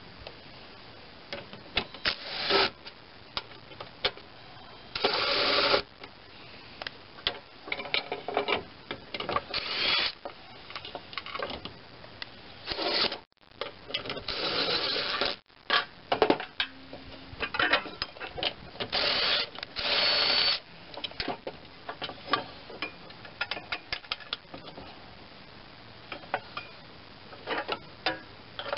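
Hand socket ratchet clicking in repeated short bursts, with scattered clinks of metal tools between, as the mounting bolts of a new mower deck spindle assembly are tightened.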